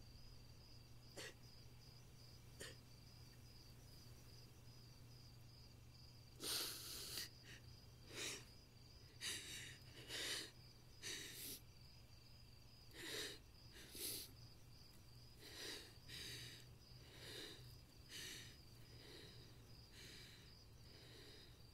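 A woman crying quietly: a run of sobbing breaths and sniffles, about one a second, beginning several seconds in, over steady chirping crickets.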